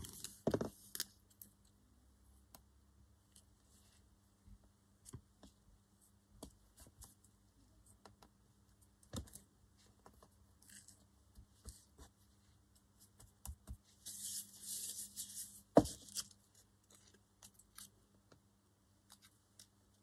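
Small paper scraps being handled, rustled and layered by hand on a cutting mat, with scattered light taps. There are longer scratchy rustles at the start and about fourteen seconds in, and one sharper knock about sixteen seconds in.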